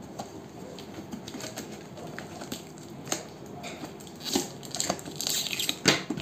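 Fingers scratching at clear plastic packing tape on a cardboard box, then the tape being peeled up, making a louder crinkling, tearing noise from about four seconds in.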